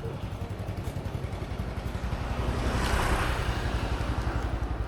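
A motor vehicle passing close by, swelling to its loudest about three seconds in and then fading, over a steady low rumble.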